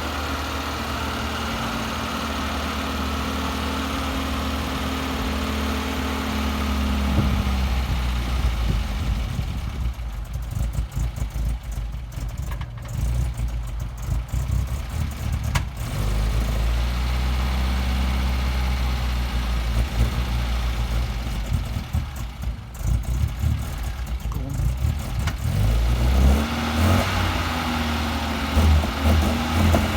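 1971 MGB's four-cylinder engine running with a misfire. It holds a steady speed at first, then its pitch drops and shifts, sounds rough and uneven in stretches, and rises again near the end.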